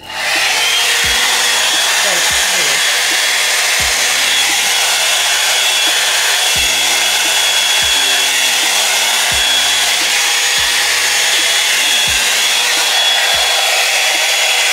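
Drybar Double Shot blow-dryer brush switched on and running steadily: a constant rush of air with a steady high motor whine that rises briefly as it spins up at the start.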